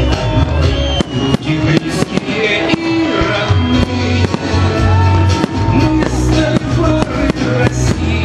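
Loud music, with aerial fireworks shells bursting over it in a string of sharp bangs at uneven intervals.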